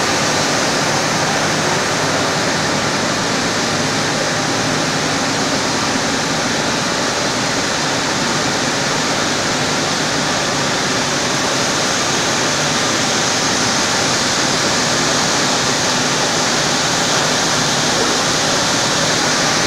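Steady, loud noise of jigger dyeing machines and other mill machinery running, an even roar with a faint low motor hum underneath and no breaks.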